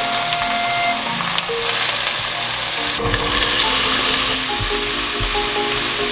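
Pork belly sizzling in a hot frying pan. About halfway through, chopped green onion and onion are stir-fried with it, a spatula stirring and knocking against the pan. Light background music plays underneath.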